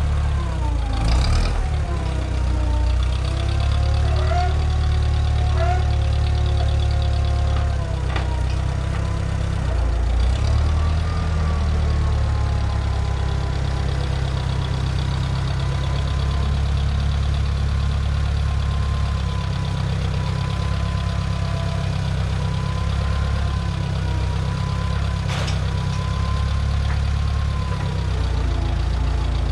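Tractor engine running steadily, with a thin whine that slowly wavers in pitch and a few short knocks.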